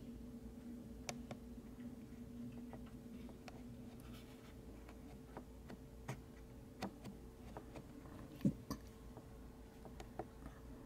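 Quiet indoor room tone: a faint steady hum with scattered light ticks and taps, and one louder knock about eight and a half seconds in.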